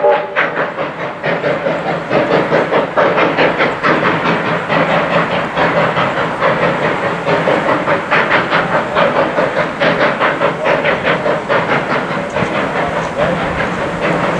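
Steam locomotive 218A working under steam as it hauls its carriages away, its exhaust chuffing in a steady rapid rhythm of several beats a second over a continuous rumble of the running train.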